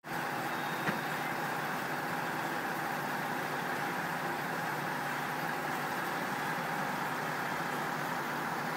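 A steady, unexplained droning noise that holds the same level and character throughout, with one short click about a second in.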